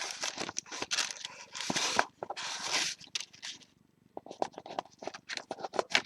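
Paper and packaging rustling and crinkling as they are handled in the box, with light clicks and taps. The rustling is dense for the first few seconds, then drops off briefly before a run of clicks and taps.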